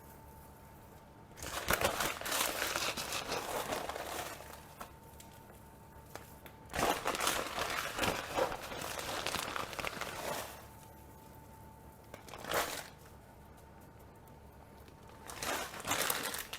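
Bursts of plastic crinkling and rustling as a block of feta cheese is unwrapped from its packaging, four spells of handling with short pauses between.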